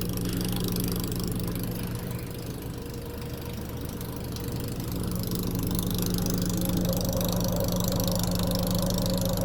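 A vehicle engine idling steadily, getting a little louder in the second half.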